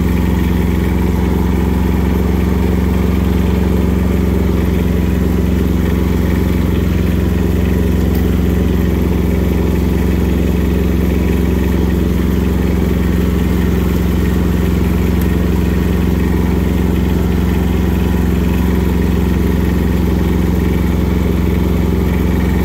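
Kubota compact tractor's diesel engine running at a steady speed while the tractor drives along. It holds the same even drone throughout, with no change in pitch or loudness.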